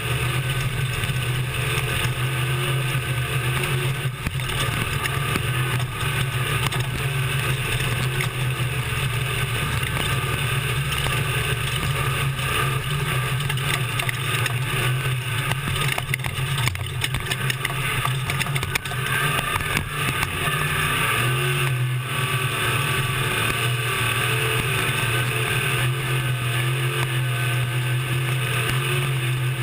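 Class 1450 desert race truck at racing speed, heard from inside the cab: its engine runs hard and steadily while the truck rattles and knocks over rough ground.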